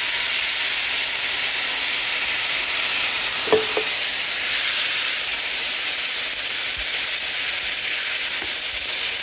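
Blended tomato, onion and garlic sauce poured into a hot frying pan of browned rice, sizzling steadily as the liquid hits the oil and boils off in steam. This is the stage where the liquid goes into the toasted rice.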